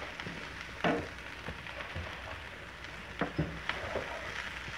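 Sliced shallots, garlic and onion sizzling in hot oil in a nonstick frying pan, with a spatula scraping and tapping the pan a few times as they are stirred.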